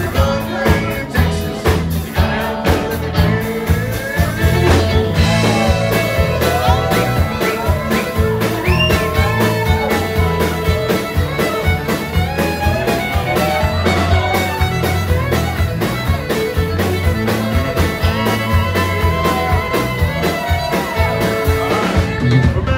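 Live country band with the fiddle carrying the melody over electric guitars, bass and a steady drum beat. The fiddle line rises and slides from about five seconds in.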